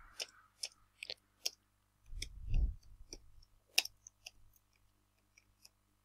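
Computer keyboard typing: a dozen or so irregular single keystrokes as a word is typed, with a low muffled rumble about two seconds in.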